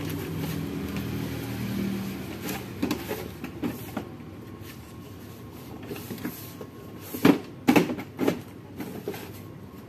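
Scattered knocks and clicks of goods and cabinet parts being handled behind a shop counter, with three louder knocks close together near the end.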